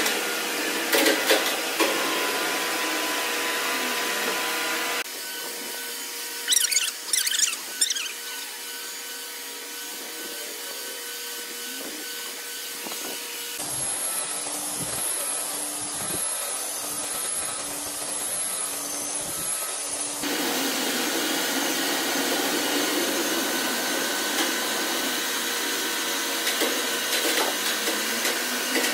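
Electric sanders running on a slab of cẩm lai rosewood, in several clips joined by abrupt cuts. In the middle, a Maktec belt sander runs across the wood with a steady hum; a few short sharp scrapes or knocks come about a quarter of the way in.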